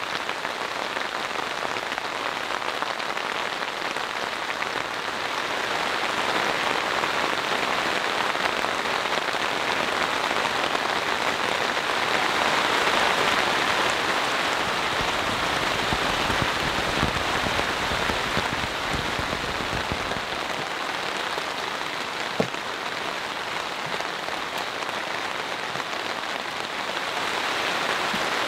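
Steady rain falling on the fabric of a dome tent, heard from inside: an even, dense hiss that swells a little around the middle. One sharp click sounds late on.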